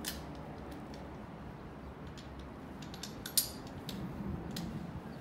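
Scattered metal clicks and clinks from a hand-operated crimping tool for gas-pipe press fittings being put together, with a single sharp click about three and a half seconds in the loudest.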